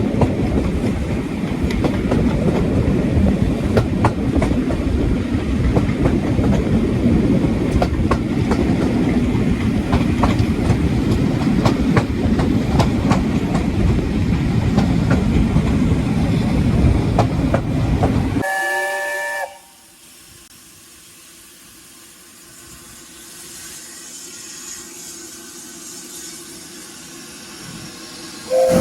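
A steam train runs close by with a steady rumble and the regular clicking of wheels over rail joints. About two-thirds of the way through, a steam locomotive's chime whistle sounds briefly in several notes at once, then the sound drops abruptly to a quiet background. Right at the end another steam whistle starts, rising in pitch.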